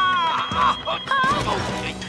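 Smoke alarm sounding a single high steady tone, which breaks into short beeps and stops shortly before the end, set off by smoke from a blown-out match. Comic music and startled voices sound over it.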